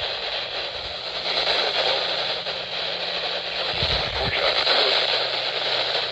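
Weather radio receiver hissing with static, with a low hum under it and a couple of low thumps about four seconds in.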